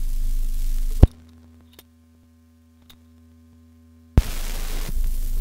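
Phonograph record surface noise with a low hum from the filmstrip's soundtrack disc. A loud click about a second in cuts it off to a faint hum with a couple of small ticks, then a thump about four seconds in brings the surface noise back: the record being changed over to its other side.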